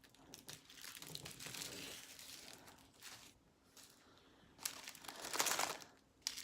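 Small plastic bags of diamond painting drills crinkling as they are handled and sorted, with the loudest rustling about two-thirds of the way through.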